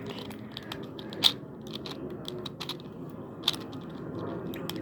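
Plastic 4x4 Rubik's Cube layers being turned by hand: a run of quick, irregular clicks and clacks, with two sharper snaps, one a little over a second in and another past three seconds in.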